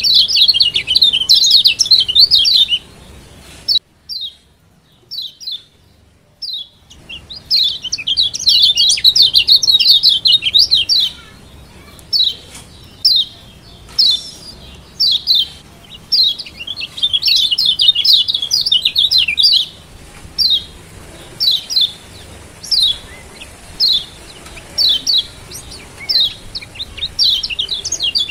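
Kecial kuning (Lombok yellow white-eye) giving its sharp 'ciak' calls. Rapid chattering runs of high chirps alternate with single chirps spaced about half a second apart, and there is a pause of about three seconds near the start.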